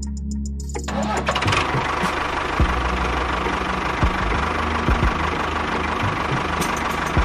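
Engine running steadily with a dense, rattling chug, which thickens and settles about a second in.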